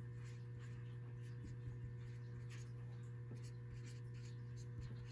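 Dry-erase marker writing on a whiteboard: a run of faint, short, irregular scratches and squeaks as letters are drawn, over a steady low hum.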